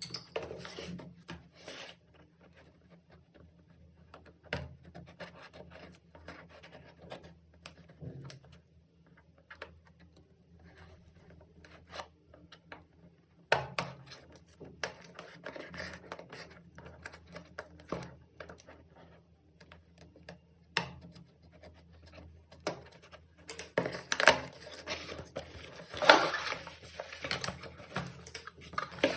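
Hands unboxing a microphone: scratching, rubbing and light taps on the packaging in scattered strokes, with a busier, louder stretch of handling about four-fifths of the way through. A faint steady low hum lies beneath.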